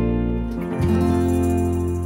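Instrumental outro music led by guitar, with sustained chords and a new chord coming in just under a second in.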